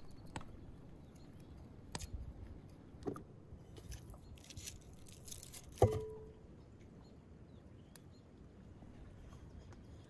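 Quiet, hands-on food preparation: garlic being peeled by hand, with small clicks and a papery crackle of skins. About six seconds in comes one sharp knock on an enamel bowl that rings briefly.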